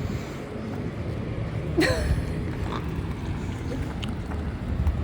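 Wind rumbling on the microphone, with one short pitched vocal squeal about two seconds in.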